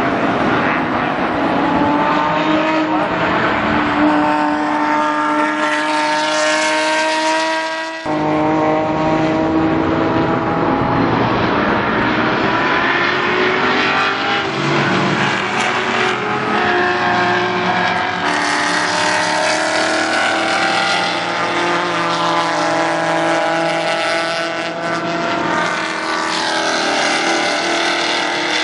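Race car engines at speed as several cars run past on the circuit, the pitch of their engine notes slowly rising and falling. The sound breaks off abruptly about eight seconds in and picks straight up again.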